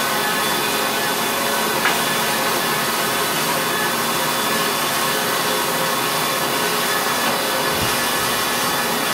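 Steady machine noise, a constant hiss and hum with several fixed tones, unchanging throughout, with one faint click about two seconds in.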